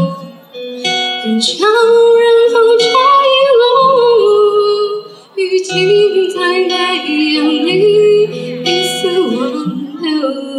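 A woman singing a melody into a microphone, accompanied by an acoustic guitar. She sings two phrases with a short break about five seconds in.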